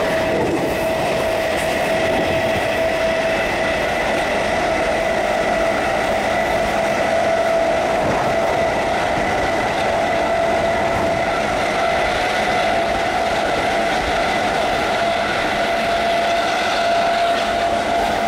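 GEC G315BZ traction motors of a Class 317 electric multiple unit whining at a steady pitch while the train runs at speed, over the noise of the wheels on the track.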